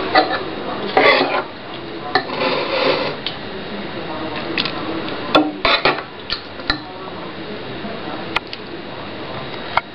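A spoon scraping and clinking against a serving bowl as thick kootu is dished into it. It starts with two short scrapes, then comes a run of sharp taps and knocks.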